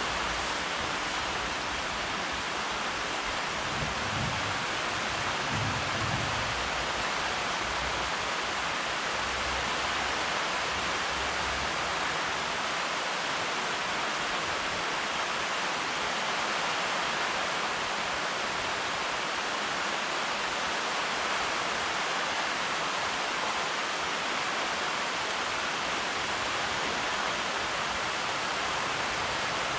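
Steady rain falling, an even hiss with no distinct drops standing out. A faint low rumble sits under it in the first several seconds.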